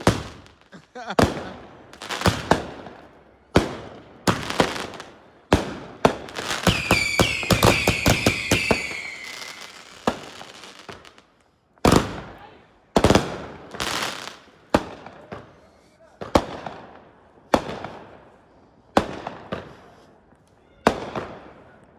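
Consumer fireworks going off: a string of sharp bangs about a second apart, each trailing away. Around the middle comes a dense run of rapid crackling with several whistles that fall in pitch.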